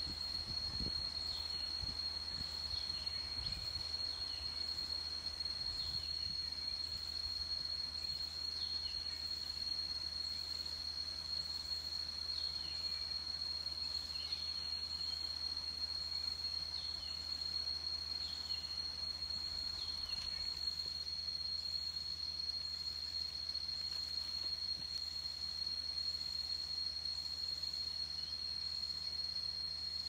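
Cicadas droning in one unbroken high-pitched shrill. Over it, short falling chirps repeat every second or two, then stop about two-thirds of the way through.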